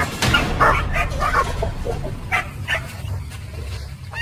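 A dog yelping and whimpering in distress, a run of short, irregular cries, one rising sharply near the end, as it breaks free from a kangaroo's grip in the water.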